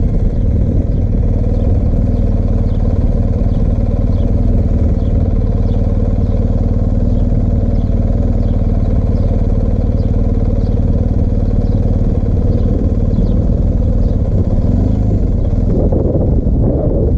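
BMW R1250GS Adventure's boxer twin engine running steadily as the motorcycle rides along. Near the end the sound turns rougher and noisier.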